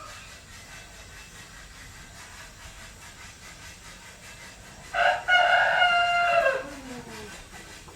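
A rooster crowing once, loud, about five seconds in: a cock-a-doodle-doo lasting about two seconds that drops in pitch at the end.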